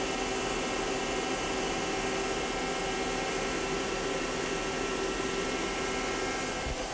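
Steady whirring hum and hiss of a powered-up CNC Swiss-type lathe and its bar feed, with several steady tones running through it and a slight change near the end.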